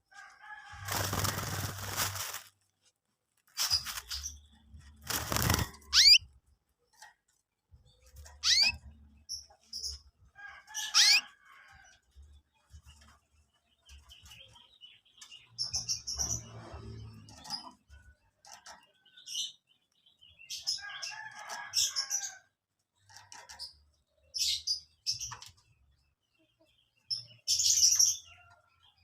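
Young canaries chirping in scattered short calls and quick sliding notes. Two brief noisy bursts come in the first six seconds and are the loudest sounds.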